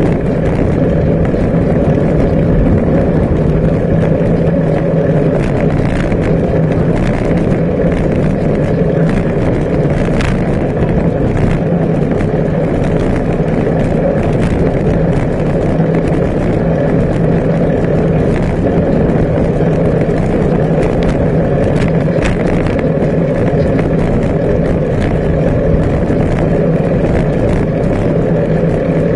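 Bicycle riding along a tarmac path, heard through a camera mounted on the bike: a steady, loud rumble of tyres and air rushing over the microphone with a low hum underneath, and scattered small ticks and rattles.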